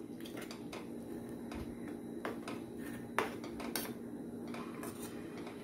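Metal ladle stirring a thick vegetable mash in a stainless steel pot, with a few sharp taps and scrapes of the ladle against the pot, over a steady low hum.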